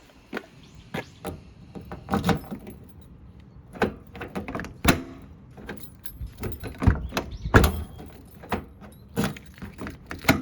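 Irregular series of sharp clicks and clunks with a metallic jingle, from keys and a Pajero Mini's stuck rear door latch being worked.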